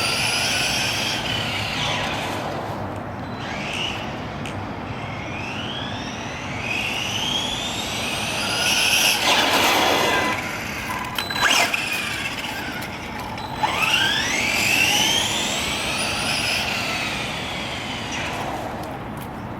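Helion Select Four 10SC RC short course truck's electric motor whining up in pitch again and again as it accelerates. A rush of noise comes a little before halfway, followed by a few sharp knocks.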